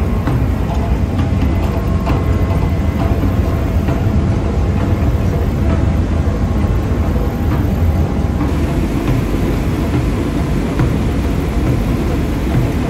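Ferry's diesel engine running with a steady low rumble, heard from the deck.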